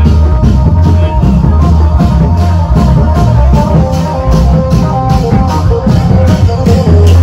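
Loud music with a heavy bass beat, drums and a melody carried by plucked or electric instruments, playing continuously.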